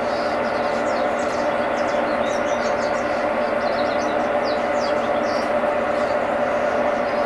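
Brastemp 11 kg washing machine running with a steady mechanical hum and whine: the noise the owner presents as a problem with the machine. Birds chirp on and off in the background.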